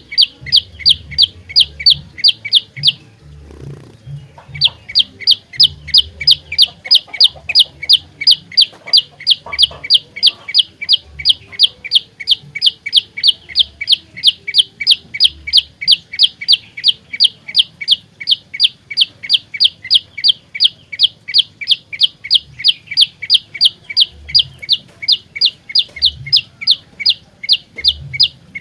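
Prenjak lumut calling a fast, even series of sharp chips, about four a second, with a break of about a second and a half some three seconds in.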